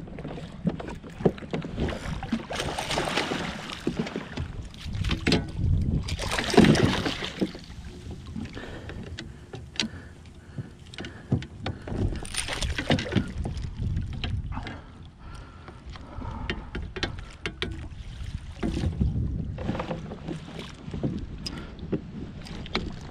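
Water splashing beside a kayak as a hooked snook thrashes at the surface and is scooped into a landing net, with several louder bursts of splashing a few seconds apart. Scattered small knocks and clicks of gear against the hull.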